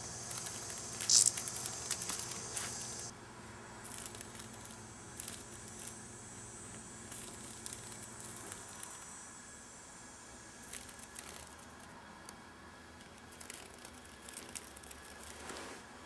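A cicada buzzing in a high, hissing drone that peaks sharply about a second in and cuts off after about three seconds. After that come scattered light clicks and rustles as the cat paws at the insect on the carpet.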